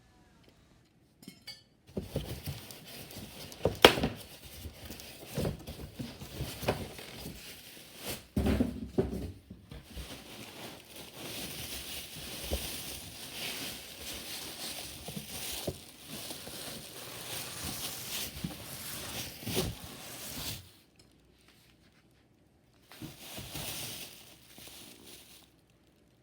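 A new microwave being unboxed: packaging rustled, scraped and pulled about, with occasional knocks. The noise stops for about two seconds near the end, then a shorter bout of rustling follows.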